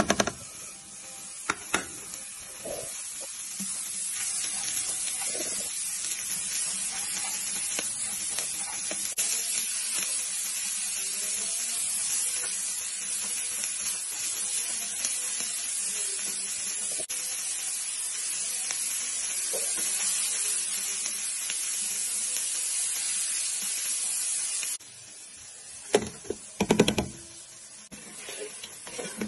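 Shredded cabbage and capsicum sizzling in hot oil in a wok as they are stir-fried, a steady hiss with a few clatters of the spatula. Near the end the hiss cuts off suddenly and a few sharp knocks of a utensil on a pan follow.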